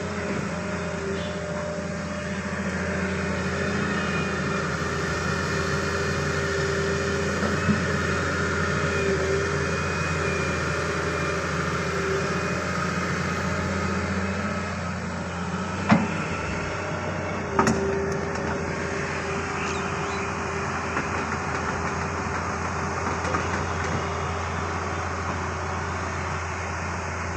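Sumitomo S280F2 crawler excavator's diesel engine running steadily under load as it digs and swings buckets of wet mud, with a constant hum. A few sharp clanks cut through, two of them a second or two apart about two-thirds of the way through.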